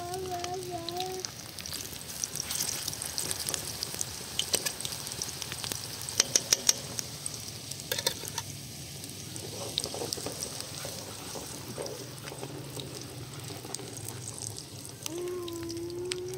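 Sliced vegetables frying in oil in a pan over a wood fire: a steady crackling sizzle with scattered pops, and a quick run of four sharp clicks about six seconds in. A held voice-like tone is heard at the start and again near the end.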